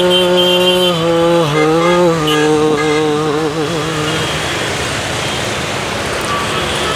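A man humming a slow tune with long held notes, stopping about four seconds in, after which a steady noise carries on.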